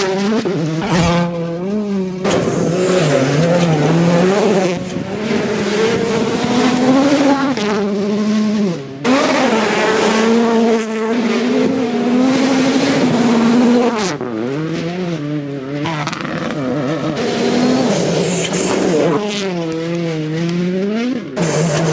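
Hyundai i20 Coupe WRC rally car's 1.6-litre turbocharged four-cylinder engine driven hard, its revs climbing and falling over and over through gear changes and braking, with sharp drops about 9, 14 and 21 seconds in.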